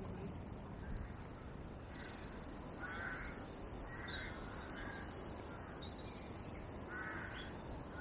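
A crow cawing, a few short calls a couple of seconds apart, faint over a low steady rumble.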